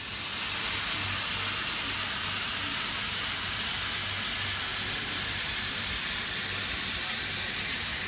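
Steady hiss of a compressed-air spray gun spraying activator over a hydrographic print film floating on the water of a dip tank, which readies the film for dipping.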